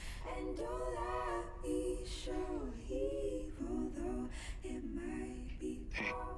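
A woman singing a slow melody in long, gliding held notes, with little or no accompaniment.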